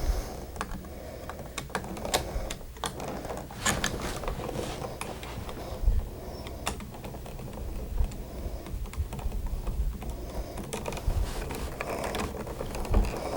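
Irregular small clicks and light scraping of wire and metal as the wires are unhooked from the terminal screws of an old single-pole wall switch.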